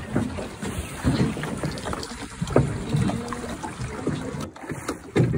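Wind buffeting the microphone over river water lapping at a fishing boat's hull, uneven and gusty.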